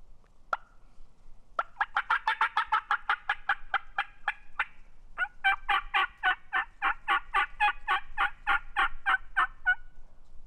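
Turkey calling: two long runs of evenly spaced yelping notes, about six a second, with a brief break near the middle.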